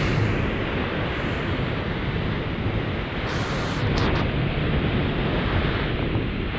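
Steady rushing noise of the creek running through the canyon below the suspension bridge, mixed with wind buffeting the microphone.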